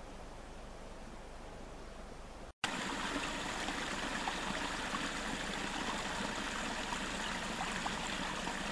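Small shallow woodland brook trickling and babbling over twigs and leaf litter, a dense steady rush speckled with small drips. It cuts in suddenly about two and a half seconds in, after a stretch of faint outdoor hiss.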